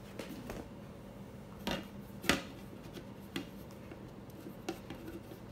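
Cooking pot and plate being handled and knocked: two sharp knocks about two seconds in, the second the loudest, then a few softer taps, over a steady low hum.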